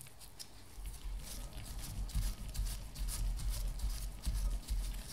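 Coarse P180 sandpaper rubbing on the slip rings of a Valeo car alternator's rotor in repeated short scratchy strokes, about two to three a second, polishing the worn ring surfaces, with dull low bumps as the alternator is handled.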